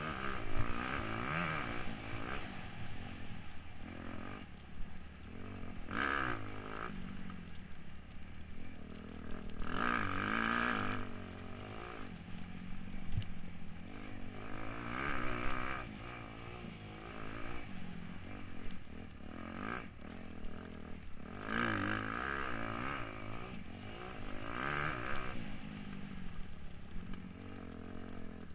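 Motocross bike engine revving up and down again and again through the gears as it is ridden hard around a dirt track, heard from the rider's helmet camera, with some clatter.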